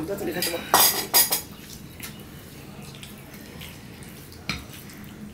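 Ceramic serving bowl and plates clinking as curry is served onto a plate of rice: two sharp clinks about a second in, and a lighter one near the end.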